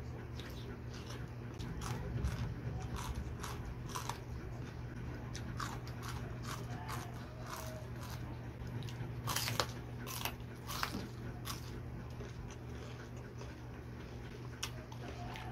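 Crisp, irregular crunches of someone biting into and chewing raw luffa gourd, over a steady low hum.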